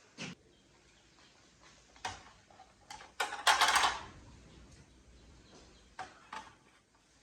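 Kitchenware being handled: a few light knocks and clinks, with one loud clatter lasting about half a second, about three and a half seconds in.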